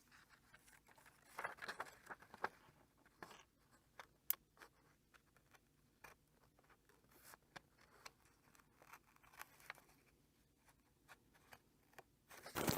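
Faint handling of book pages: soft paper rustles and scattered small clicks and taps, with one sharper click about four seconds in and a louder rustle near the end.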